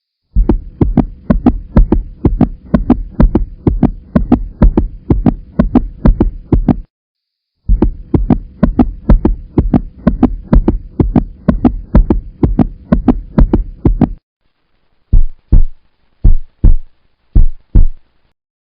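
Pounding heartbeat sound effect: fast, heavy, regular beats that stop briefly a little before halfway, resume, then slow to five separate beats near the end.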